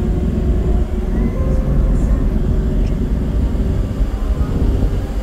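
Engine of a vehicle running steadily as it drives along, with a heavy low rumble of wind and road noise on the microphone.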